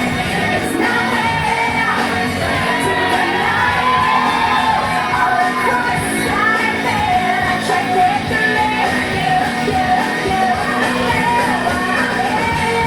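Pop dance music with a singing voice, played loud in a large room, with some shouting over it.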